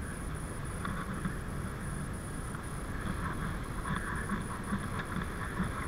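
Wind on the microphone and the steady rumble of bicycle tyres on a tarmac path while riding.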